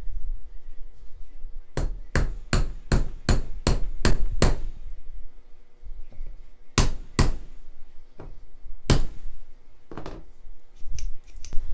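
A small hammer striking metal: a quick run of eight taps, about two and a half a second, then four more spaced taps. The hammer is driving a roll pin into the metal tube of a homebuilt flap-release handle.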